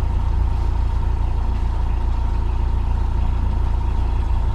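Narrowboat engine running steadily with a low rumble and a thin, steady high whine over it, which the skipper believes is the fan belt slipping.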